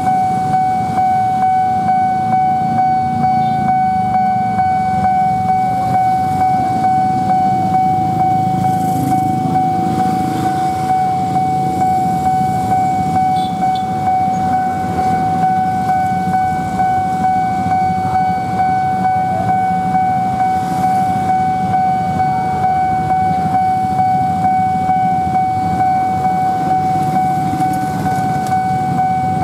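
Railway level-crossing warning alarm sounding one steady, unbroken high tone, over the low rumble of idling and passing motorcycles and cars.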